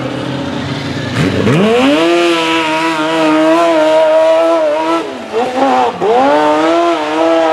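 Tube-chassis hill-climb buggy's engine revving hard under load as it climbs a steep dirt hill. The revs wind up sharply about a second in and hold high. Around five seconds in they drop off briefly with a couple of quick blips, then climb back up near the end.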